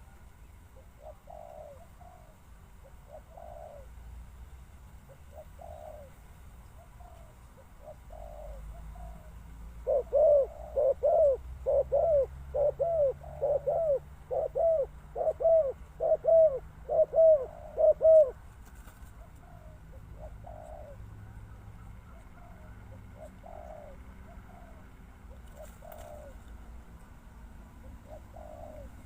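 Spotted doves cooing: faint coos repeat throughout, and about ten seconds in a close bird gives a quick run of loud coos for some eight seconds before falling back to the fainter calling.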